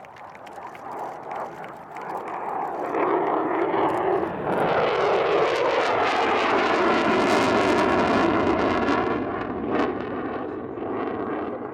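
Turkish Air Force F-16 Block 40 Fighting Falcon jet passing: the jet noise builds about two seconds in, is loudest through the middle with a sweeping shift in tone as it goes by, then fades near the end.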